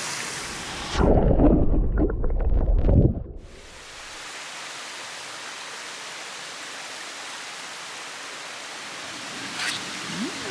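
Steady rushing of a mountain stream. About a second in it is broken by two seconds of loud, low buffeting on the microphone.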